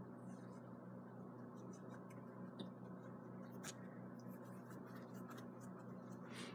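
Quiet room with a steady low electrical hum and scattered faint clicks and scratches.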